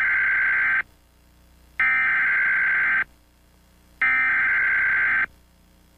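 Emergency Alert System SAME header: three bursts of digital data tones, each just over a second long with about a second's pause between them.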